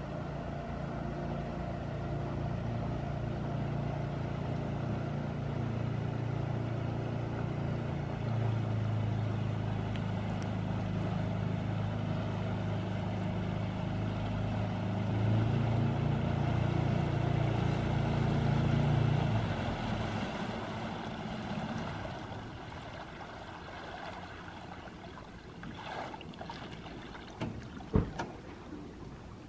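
Small outboard motor pushing a flat-bottom jon boat, running steadily with its pitch shifting a few times, then dying away about twenty seconds in as the boat comes in. A couple of knocks near the end.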